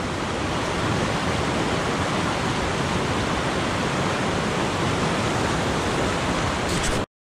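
Rocky mountain creek rushing through white-water rapids, a steady, even noise of water that cuts off suddenly near the end.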